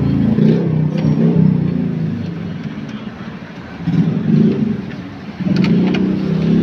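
A car engine running, its low hum rising in level a few times as if lightly revved.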